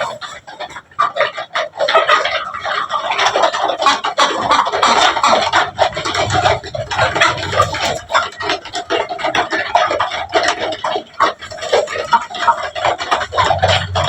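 A flock of desi chickens clucking and calling, many birds overlapping in a dense continuous chatter.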